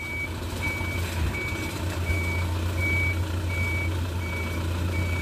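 Reversing alarm of a box delivery truck beeping steadily, one high tone about every three-quarters of a second, over the truck's engine running at low speed as it backs up.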